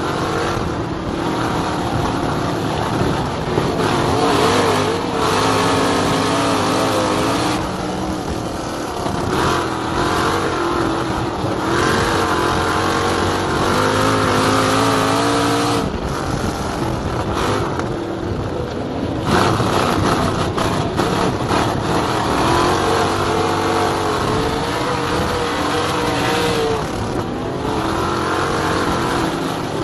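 Race car engine heard from onboard at racing speed on a dirt track. Its pitch sags and climbs again about every nine seconds, easing off and then pulling hard again around the laps.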